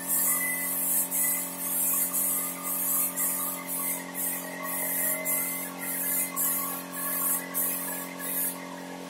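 Air spray gun spraying wood polish lacquer in a rapid series of short hisses, about one or two a second, over a steady hum; the hisses stop shortly before the end.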